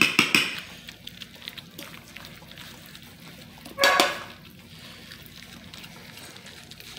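Basset hound puppies eating wet puppy mush from a shallow metal pan: wet lapping and smacking with clinks against the pan, busiest in the first half second. There is one short, loud, pitched sound about four seconds in.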